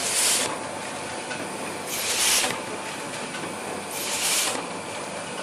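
Suction-feed collating machine running: a steady mechanical clatter with a short hiss of air about every two seconds, three times, as its pneumatic suction feed heads cycle.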